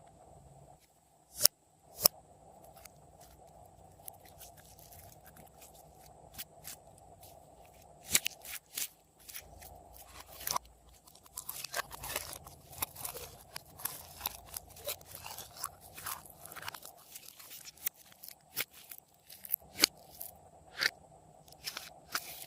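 Glossy slime being worked by hand with hard-candy pieces mixed through it, giving crunchy clicks and crackles. There are a few sharp snaps in the first seconds, and the crackling grows denser from about halfway.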